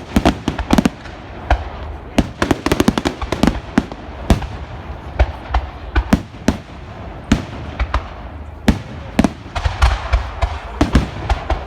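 Fireworks going off in an irregular series of sharp bangs, with a quick run of crackling reports about three seconds in.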